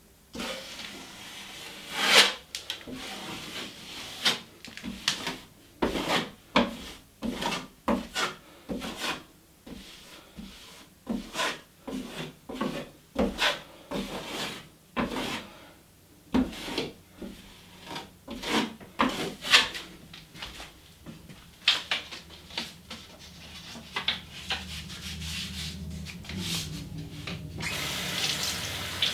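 Drywall knife scraping and smoothing joint compound on a drywall patch, a long run of short strokes at about one to two a second. Near the end a steady hiss sets in.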